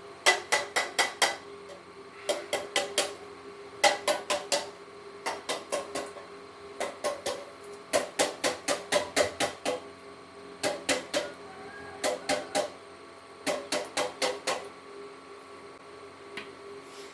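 Quick bursts of hammer blows on steel, four to seven ringing strikes at a time with short pauses between bursts, over a steady hum.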